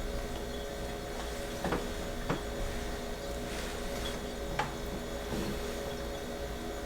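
A steady mechanical hum with a few faint clicks or knocks.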